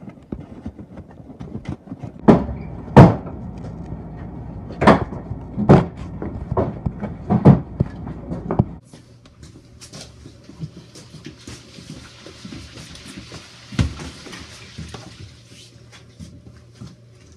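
Hurried footsteps and a series of loud knocks and bangs, about six over five seconds, as people rush in through a door. Then quieter shuffling over a steady low hum, with one more knock.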